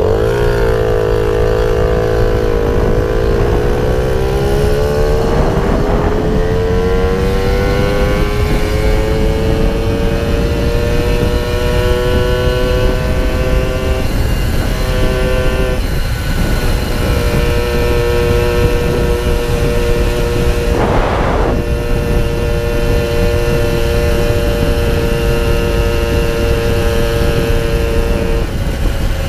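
Puch Maxi Luxe moped's 50cc two-stroke engine through a sidebleed expansion-chamber pipe, pulling away and rising in pitch over the first several seconds, then holding a steady high buzz at cruising speed, with wind rumble on the microphone. The engine note drops off briefly twice in the middle and falls away near the end.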